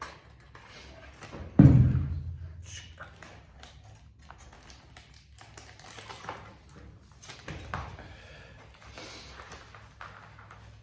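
Scattered small clicks and taps of hands working on electrical wiring, with one loud, dull thump about a second and a half in. A steady low hum runs underneath.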